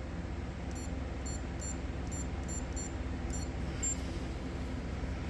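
A string of about nine short, high electronic beeps over roughly three seconds, then one slightly longer beep, from the Lockmasters decoding box wired to a Lagard 4200 electronic safe lock, over a steady low hum.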